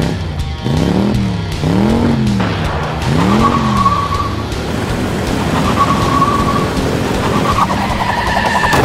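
Cartoon race-car sound effects: an engine revving up and back down three times during the start countdown, then tyres screeching over loud engine noise as the cars race off.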